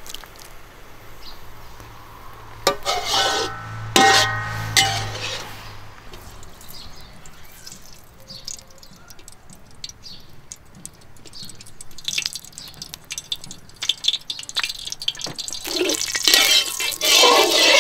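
Water dripping and splashing as a metal ladle lifts shredded bamboo shoots out of a basin of water, with a few sharp metallic clinks that ring briefly; then small scrapes and taps of a metal spatula in a steel wok. Music comes in near the end.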